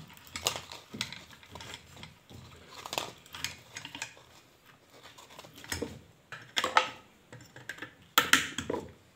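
Irregular metal clicks and clinks as a ceiling fan's downrod is screwed onto the threaded stator shaft, which is held with nose pliers. There are several sharper clanks in the second half.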